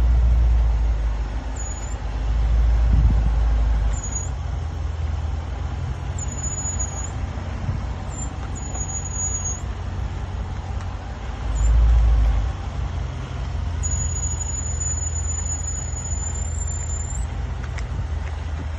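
High-pitched brake squeal from a 2017 Range Rover Sport SVR while it is moving: several short squeals and one long one of about three seconds near the end, over steady low road rumble and a few loud deep rumbles. It is a persistent squeal that new pads, discs and calipers have not cured.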